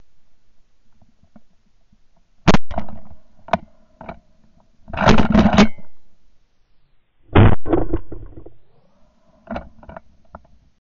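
Shotgun shots at ducks in a ragged volley: a loud report about two and a half seconds in, several close together around five seconds, another loud shot about seven and a half seconds in, and a few fainter pops near the end.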